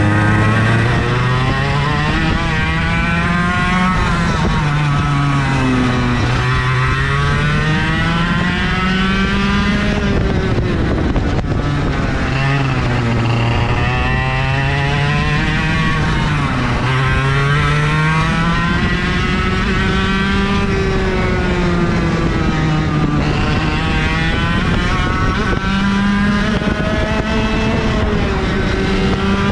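IAME KA100 100cc two-stroke kart engine at full racing load, heard from on board: its pitch climbs steadily along each straight and drops sharply as the kart slows for each corner, several times over.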